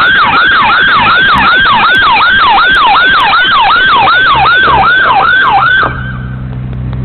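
Police car siren on a fast yelp, about three falling sweeps a second, very loud through a doorbell camera's microphone; it cuts off suddenly about six seconds in, leaving a vehicle engine running.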